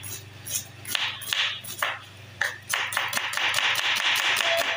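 Chef's knife chopping a red onion fine on a wooden cutting board: quick, uneven knocks of the blade through the onion onto the board, coming thicker and faster near the end.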